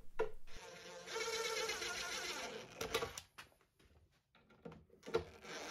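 Cordless DeWalt impact driver running in short bursts, driving screws into the pine top of a bookcase: a run of about a second and a half starting about a second in, a pause, then another burst near the end.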